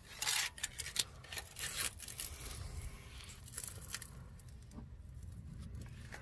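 Scattered clicks, scrapes and rustles of a steel band-type oil filter wrench being handled and worked on a spin-on oil filter. The clicks are busiest in the first couple of seconds and thin out after about four seconds.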